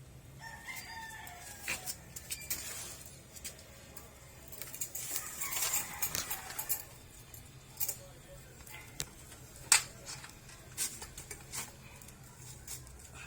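Scattered sharp metal clicks and clinks with stretches of rustling, from hands hooking a steel retaining spring onto a motorcycle exhaust pipe and elbow. The loudest click comes about ten seconds in.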